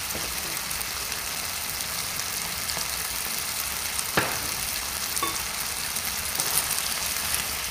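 Yard-long beans, onion and fried egg strips sizzling steadily in a hot wok, with fine crackling throughout and a single sharp click about four seconds in.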